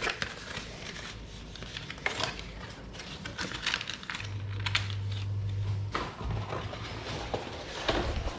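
Kitchen handling noises: scattered clicks, knocks and rustles, with a steady low hum that starts about four seconds in and runs for a few seconds, briefly dropping out about six seconds in.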